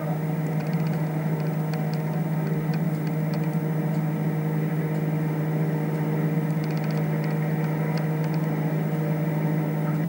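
Steady machine hum at one constant pitch, with small clusters of faint high ticks scattered through it.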